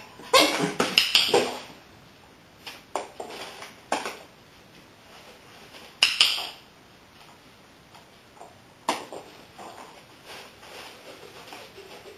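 A dog yips and barks several times in the first second and a half, then a handful of sharp separate clicks and clinks follow.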